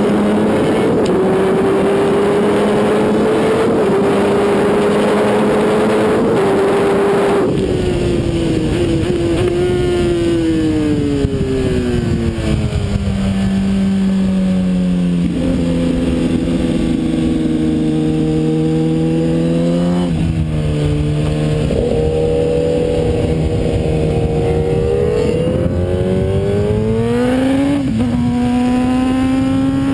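Kawasaki ZX-10R's inline-four engine heard from on board with wind roar: high revs and upshifts down the straight, then about seven seconds in the wind noise drops away as the throttle closes and the revs fall through a series of downshifts. The engine holds lower revs through the corners, then climbs again with an upshift near the end.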